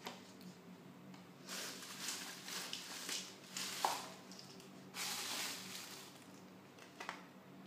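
Hands handling craft materials: several stretches of rustling, with one sharp click a little under four seconds in.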